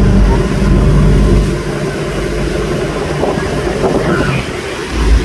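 Motorboat engine running under way while towing a tube, a steady low hum with rushing water from the wake; it is loudest for about the first second and a half, then eases a little.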